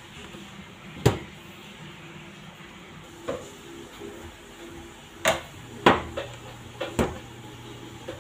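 Kitchen clatter while pizza dough is portioned on a stainless steel work table: about seven sharp knocks and taps, spread out and irregular, the loudest about a second in and near six seconds. A low steady hum comes in a little after halfway.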